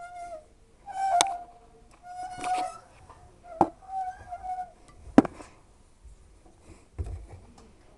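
Hoover W 420 washing machine with broken drum bearings: short high squeals, about one a second as the drum turns, broken by a few sharp knocks.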